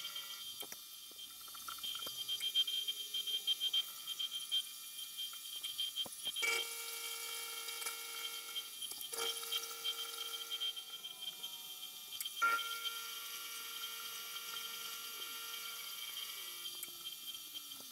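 Milling machine running, its spindle whining steadily while a high-speed-steel cutter plunge-cuts the side of a metal block, with fine ticking throughout. The sound changes abruptly three times, and a tone slides down near the end.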